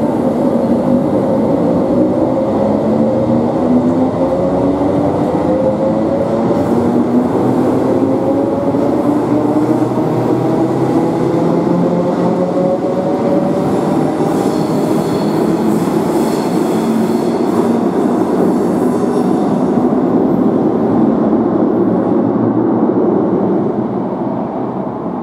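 Electric multiple unit pulling out of an underground platform. The traction motors' whine rises steadily in pitch as it gathers speed over a continuous rumble of wheels on rail. A high-pitched squeal from the wheels joins about halfway through as the last carriages pass.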